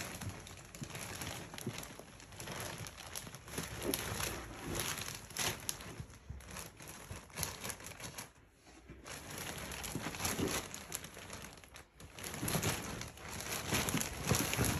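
Clear plastic wrapping crinkling and rustling in irregular bursts as a husky digs and noses at a plastic-wrapped bundle of pillows, with a couple of brief lulls.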